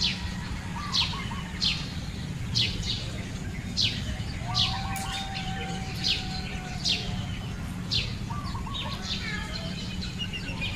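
Birds calling: one bird repeats a sharp, falling note about once a second, with fainter chirps from other birds between, over a steady low rumble.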